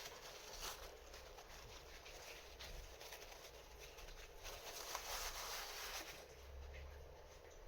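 Faint rustling and rubbing as a dirty, oily combination-lock wheel is wiped with a paper towel, with a few light clicks of the small parts being handled. The rubbing is a little louder just past halfway.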